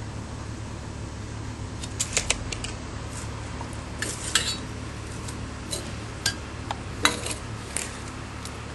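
Small metal fixture parts clinking and tapping as they are handled and set down on a table: scattered light clicks, a few close together about two seconds in and others spread through the rest.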